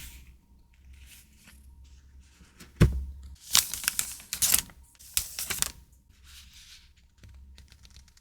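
Stationery packaging handled on a desk: a thump nearly three seconds in, then bursts of crisp rustling and crinkling, with light taps and clicks.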